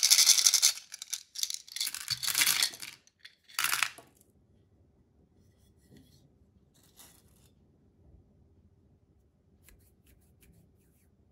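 Hard candy-coated chocolates rattling and pouring out of a plastic container into plastic toy bathtubs, in three bursts over the first four seconds, then only a few faint clicks.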